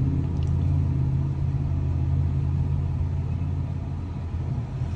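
Steady low rumble of a car being driven, engine and road noise.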